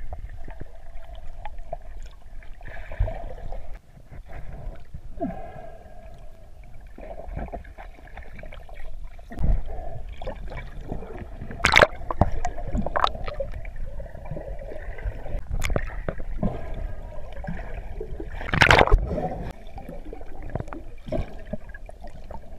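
Water heard from under the surface as a dog swims and dives: muffled gurgling and churning, with a few sharp knocks or splashes, the loudest about 12 and 19 seconds in.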